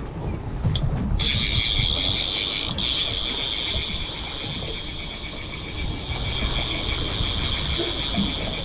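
Fishing reel on a trolling rod buzzing: a steady, high, fast-ratcheting whine that starts suddenly about a second in and keeps going. Boat outboard motors run low underneath.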